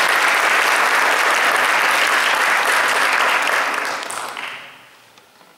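Audience applauding a piano-and-voice performance, the clapping dying away about four to five seconds in.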